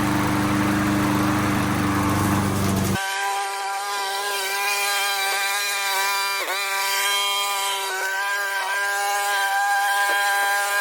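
Kohler XT675 single-cylinder lawn mower engine running steadily. About three seconds in, the sound abruptly turns into a high, even buzz with no low end, as in sped-up playback. The pitch dips briefly, as if under load, about halfway through.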